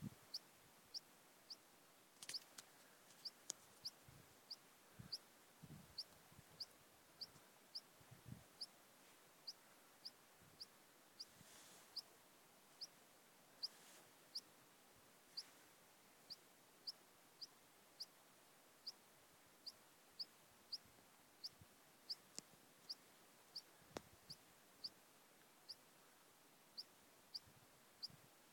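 Near silence with faint, short high chirps repeating about every half second to second, and a few soft low thuds from wind on the microphone.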